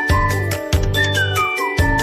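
Background music with a steady beat: a bright, chiming tune over a bass line.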